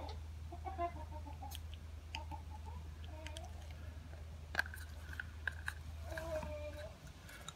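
Faint, scattered small clicks from handling the grease tube and the stroller's plastic wheel housing. Brief clucking of distant chickens comes in now and then, over a low steady rumble that stops near the end.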